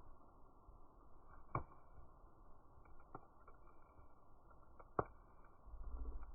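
Wood fire in a fire pit crackling, with a few sharp pops, the loudest about one and a half seconds and five seconds in, over a faint low rustle. A low rumble builds near the end.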